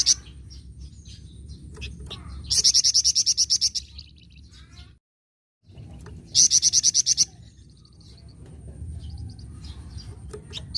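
Flamboyan songbird giving its rapid rattling 'nyecret' call: two loud, fast trains of high notes, about eight a second and each a little over a second long, the first about two and a half seconds in and the second about six seconds in. Soft scattered chirps fill the gaps, and the sound cuts out completely for about half a second near the middle.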